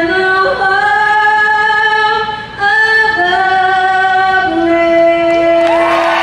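A woman singing a slow melody in long held notes, with a short break for breath about two and a half seconds in.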